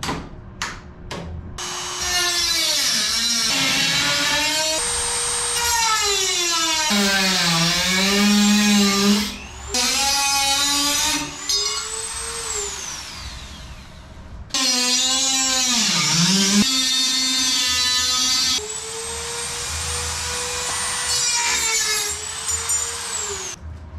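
Dremel rotary tool cutting aluminum, in several long runs with short breaks. Its high motor whine sags in pitch each time the bit is pressed into the metal and climbs back as the load comes off. A few sharp clicks come at the very start.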